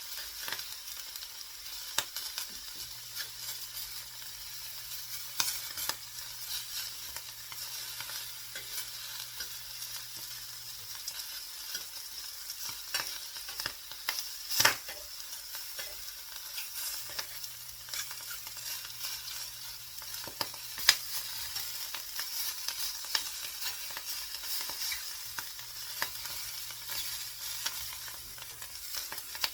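Food sizzling steadily in a frying pan, with scattered clicks and scrapes of a utensil stirring it; a louder knock about halfway through and a sharp tap a few seconds later.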